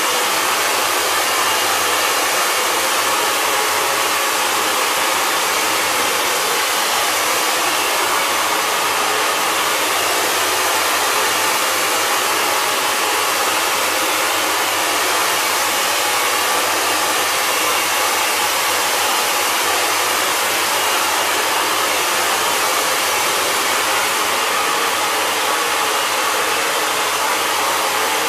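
Handheld hair dryer blowing steadily on a freshly spray-chromed figurine, drying the new silver coating.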